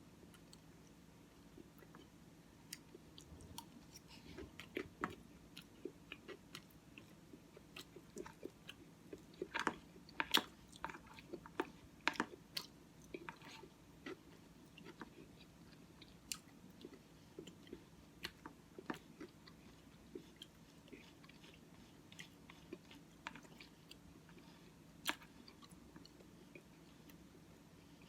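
Close-up chewing and mouth sounds: irregular soft crunches and wet clicks of someone eating oatmeal with Cookie Crisp cereal, busiest about a third of the way in, over a faint low hum.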